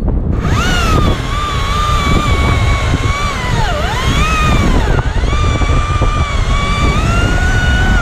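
Husqvarna T540iXP battery-powered top-handle chainsaw running up to speed about half a second in, its electric whine sagging in pitch a few times as the chain bites into sycamore wood and recovering in between.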